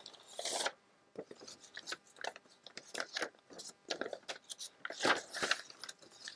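Book-page paper being handled and folded: irregular rustling and crinkling with small clicks and taps, louder briefly about half a second in and again around five seconds in.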